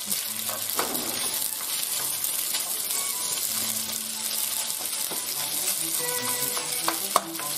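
Penne pasta sizzling in hot oil in a frying pan while a wooden spoon stirs it, with a few sharp knocks of the spoon against the pan, the loudest near the end. Soft background music plays underneath.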